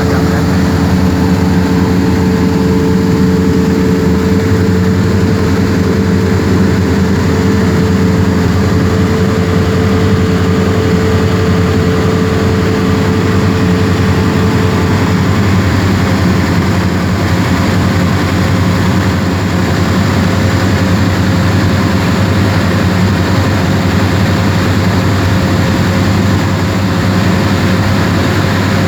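Cessna 172R's four-cylinder Lycoming engine and propeller droning steadily, heard loud from inside the cockpit in flight. A higher hum in the drone fades out about halfway through.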